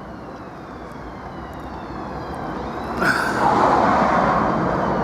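Road traffic: a motor vehicle approaching and growing steadily louder, then a loud rush of passing-traffic noise from about three seconds in.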